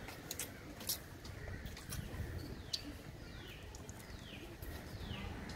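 Faint clicks and smacks of hard-candy lollipops being sucked. From about halfway a bird gives a string of short chirps, each falling in pitch.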